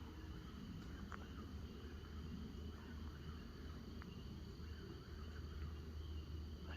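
Faint, steady chorus of insects such as crickets trilling, over a low steady rumble, with a couple of faint ticks.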